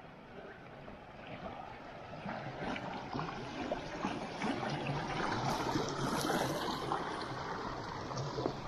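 Shallow stream rushing over stones, growing louder over the first half and loudest a little past the middle.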